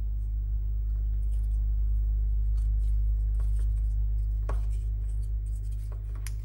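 Light clicks and handling noises of small plastic and metal parts of a floppy disk drive being worked on by hand, a few sharper ticks among them, over a steady low electrical hum.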